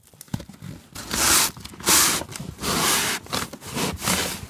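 Cardboard packaging scraping and rustling in four or five strokes of about half a second each, starting about a second in, as parts are pulled and worked out of a box.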